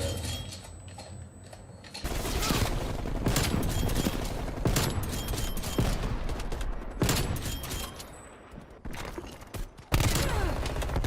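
Video game gunfire: rapid automatic fire in bursts. It is quieter at first and picks up heavily about two seconds in.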